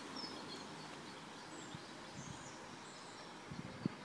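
Faint outdoor ambience: small birds chirping over a steady low hiss, with two dull low thumps near the end.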